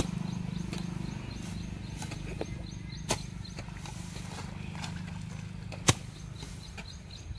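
Long-handled hoe striking wet, clumpy field soil: a few sharp single strikes, the loudest about six seconds in, over a steady low hum.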